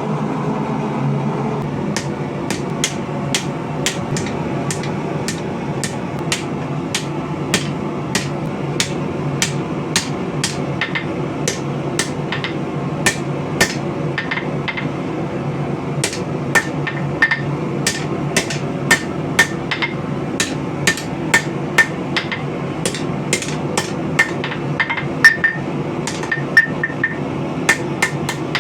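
Hand hammer striking hot spring steel on an anvil at roughly two blows a second, the later blows ringing, over a steady roar from the forge.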